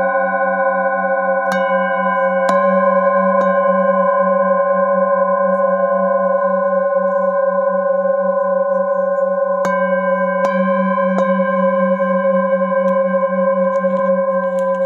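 Several brass singing bowls ringing together in long overlapping tones, the lowest tone pulsing with a slow wavering beat. Bowls are struck one after another, three strikes about a second apart near the start and three more about ten seconds in, with a couple of lighter taps after, each strike adding a fresh ring.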